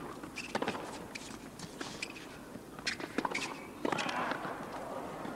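Tennis rally on a hard court: a series of sharp racket-on-ball strikes and ball bounces, with short shoe squeaks. Crowd noise swells from about four seconds in.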